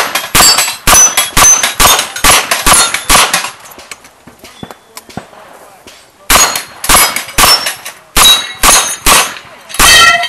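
Revolver fired rapidly at steel targets: two quick strings of shots, each shot followed by the ringing clang of steel plates being hit, with a pause of about three seconds between the strings.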